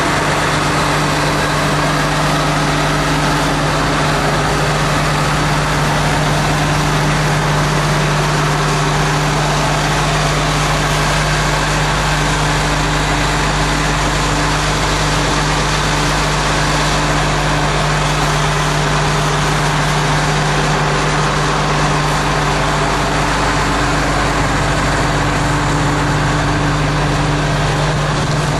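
Case IH 6088 combine's 8.3-litre six-cylinder diesel engine running steadily, a constant low hum with no change in speed.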